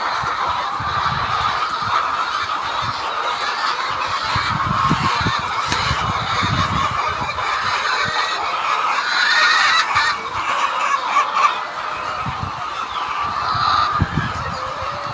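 A large flock of poultry calling all at once: a dense, unbroken chorus of many overlapping bird calls.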